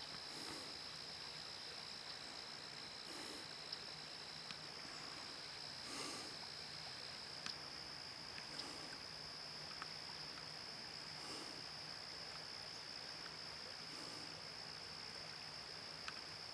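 Quiet river ambience: soft swells of water lapping at a gravel shore about every three seconds, over a steady faint hiss and a constant high-pitched tone, with a few light clicks.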